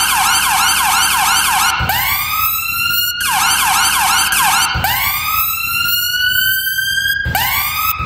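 UK ambulance siren alternating between a fast yelp, about three quick falling sweeps a second, and a slow wail that rises over one to two seconds. It switches pattern three times, with a short low thump at each switch to the wail.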